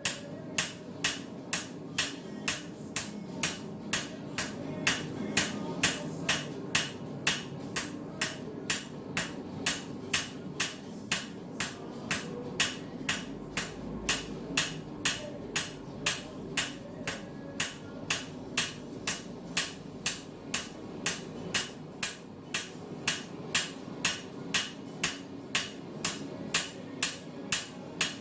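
Farrier's hammer striking a steel flat bar in a steady rhythm of about three ringing blows a second: hand-texturing the bar at the forge.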